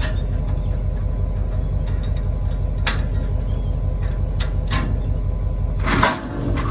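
Diesel engine running steadily, with a few sharp clicks and knocks and a louder rattle about six seconds in.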